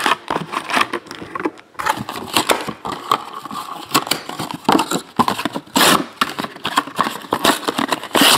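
Trading-card foil packs and their cardboard hobby box being handled: crinkling foil with irregular clicks and taps as the packs are pulled out and stacked.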